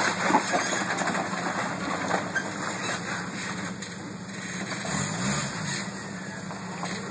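Jeep Wrangler's engine running at a low, steady drone as it crawls through a muddy gully, with a short rise and fall in revs about five seconds in.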